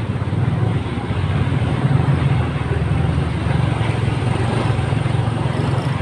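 Motorcycle running at a steady speed during a ride: a continuous low drone with no breaks.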